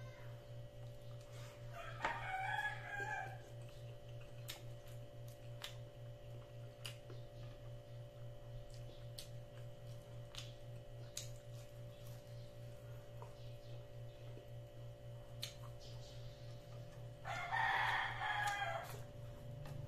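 A rooster crowing twice, a couple of seconds in and again near the end, each crow about a second and a half long. Underneath is a steady low hum with a few faint ticks.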